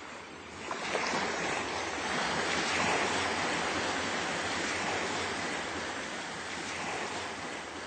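Wind rushing over the microphone of a camera mounted on a moving motorcycle, a steady noise mixed with road noise. It grows louder about a second in, as the speed picks up.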